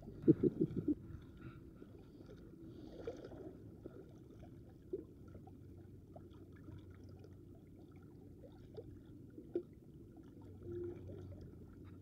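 Faint sea water lapping and gurgling at the rocky water's edge, with scattered small clicks. A few short low thumps come in the first second.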